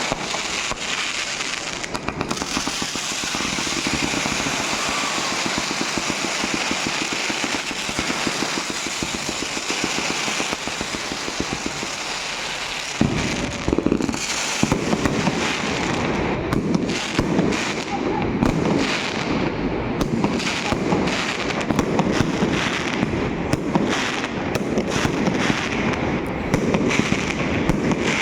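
Fireworks and firecrackers going off: a dense, rapid crackle for about the first half, then a sudden change to heavier, lower bangs and quick bursts of reports.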